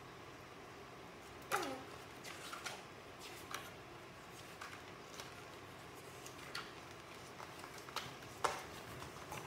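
Pages of a glossy photo book being turned by hand: soft paper rustles and light taps, with a louder page flick about a second and a half in and another near the end.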